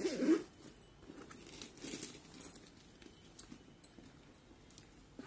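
Handling of a leather tote bag with metal chain straps: rustling and small clicks of the chains as it is closed and lifted, with a short wavering sound at the very start that is the loudest moment.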